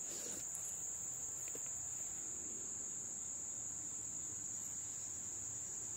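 Insects trilling in a faint, steady, high-pitched drone that does not break.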